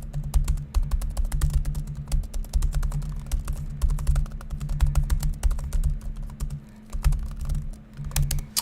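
Fast touch-typing on the Asus Zenbook Flip S UX370UA laptop keyboard, which has 1 mm key travel: a rapid, dense run of key clicks with dull thuds beneath. There is a brief pause a little over six seconds in, then the typing resumes and stops just before the end.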